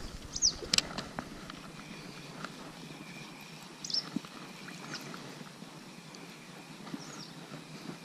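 Spinning reel being cranked on a steady retrieve after a cast, a soft continuous whir, with a couple of sharp clicks under a second in. A bird gives a short descending chirp three times, a few seconds apart.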